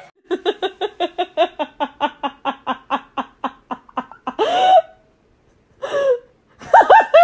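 A person laughing in a long run of quick, even bursts, about five or six a second, fading over about four seconds. It is followed by a louder short cry and then a brief vocal sound.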